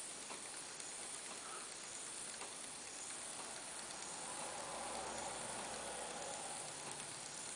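Small N20 metal gear motor running unloaded on 3 volts, a faint steady whir as its output shaft turns slowly at about 54 RPM.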